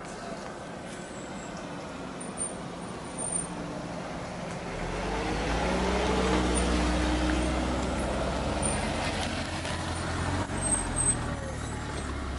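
A car coming along the road, getting louder about five seconds in, then its engine running low and steady as it slows and pulls up alongside.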